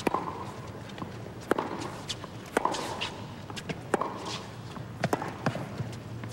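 Tennis rally: sharp racket strikes on the ball about every one to one and a half seconds, with the ball's bounces and the players' footsteps on the hard court between them.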